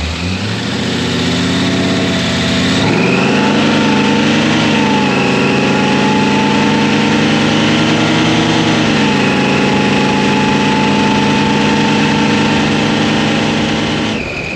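Supercharged 454 big-block V8 with a 6-71 blower, heard up close in the engine bay. Its revs climb over the first three seconds, then hold steady with a slight rise and fall midway, and the sound cuts off abruptly near the end.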